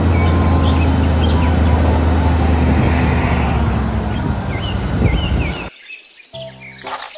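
Diesel engine of an eight-wheel tipper truck running with a steady low hum while the tipper body is raised, with birds chirping over it. The engine sound cuts off suddenly near the end, giving way to music.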